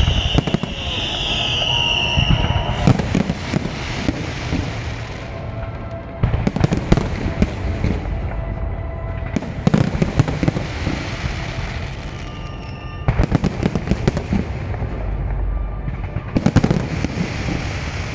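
Fireworks display: repeated clusters of bangs and crackling bursts every few seconds over a continuous rumble, with a high whistle in the first couple of seconds.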